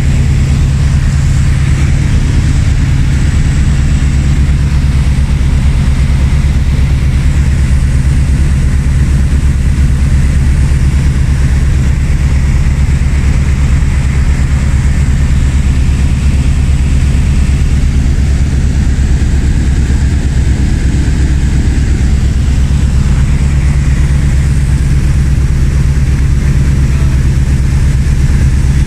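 Light single-engine propeller aircraft in flight, its piston engine and propeller running steadily, heard from inside the cockpit: a loud, even low drone with a hiss of rushing air above it.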